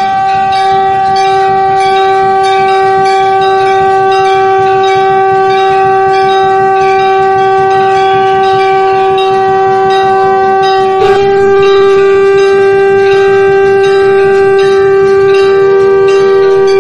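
Background flute music: one long held flute note with fainter melodic lines gliding above it. A brief click and a slight change in the note come about eleven seconds in.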